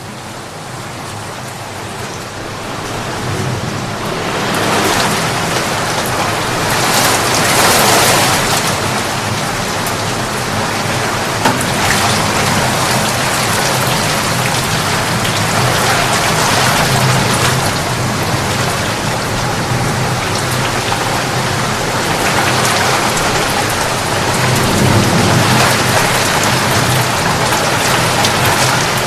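Steady heavy rain, fading in over the first few seconds and swelling and easing in strength.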